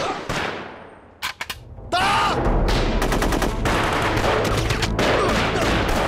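Film-soundtrack gunfire. A single shot rings out and dies away, a few sharp clicks fall in a brief lull, and then, about two seconds in, heavy continuous volleys of rifle and machine-gun fire open up and keep going.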